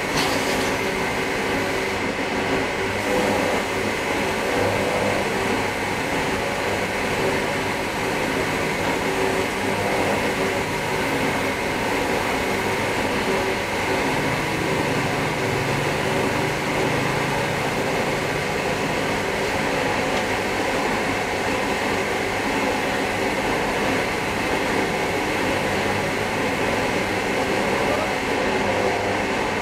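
Air spray gun hissing steadily while spraying a coat of clear lacquer, with a few steady tones humming under the hiss.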